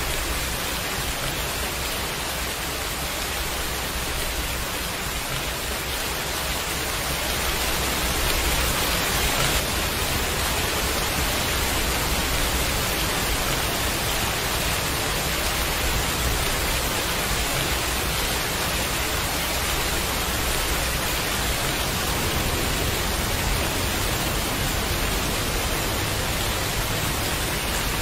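Heavy rain falling steadily, a dense even hiss with no separate drops standing out, swelling slightly about eight seconds in.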